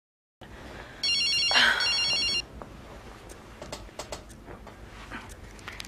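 Mobile phone ringing with an electronic warbling ring: one ring about a second in that lasts about a second and a half, then faint rustling and small clicks, and the ring starting again right at the end.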